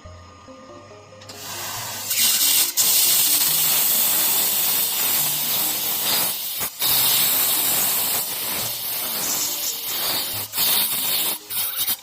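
Handheld laser cutting head running, its compressed assist-gas jet giving a loud steady hiss that starts about a second in and breaks off briefly several times as the trigger is released and pressed again. Background music plays underneath.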